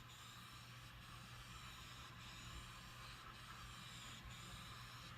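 Faint hiss of a spray gun laying down etch primer on bare metal, with brief breaks about once a second between passes, over a low steady hum.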